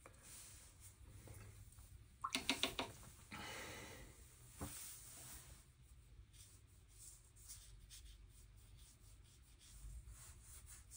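Watercolor brush stroking and rubbing across paper, faint, with a quick run of about six light taps a little over two seconds in, followed by a short scrape.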